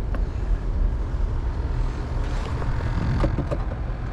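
A steady low rumble of wind and water noise around a small boat, with a few light clicks and taps about three seconds in from handling the hooked trout and its metal spoon.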